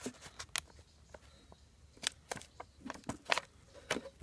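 Clear tape and a paper packet handled by hand: scattered short crinkles and clicks, coming thicker near the end.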